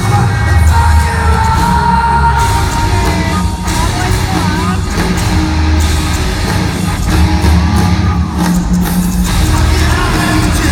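Live rock band playing loud with singing: guitars, bass and drums, recorded from the crowd.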